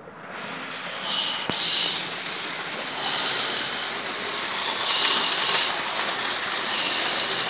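Several model trains running on a layout's track: a steady rattle and whirr of small wheels and motors, with a high squeal that comes and goes about every two seconds. One sharp click sounds about a second and a half in.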